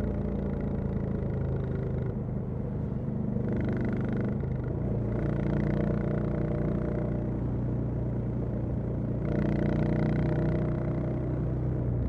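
Royal Enfield Classic 350's single-cylinder engine and exhaust running while under way, the throttle opening and easing a few times, loudest about nine to ten seconds in.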